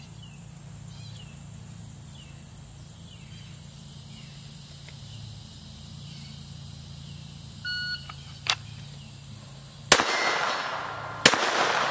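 A shot timer gives a short electronic beep, and about two seconds later a Glock 44 .22 LR pistol fires two shots just over a second apart, each crack trailing off briefly.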